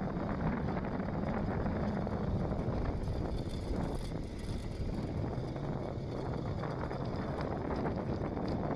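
Steady low wind rumble on the microphone with road noise from a moving vehicle, running evenly without breaks.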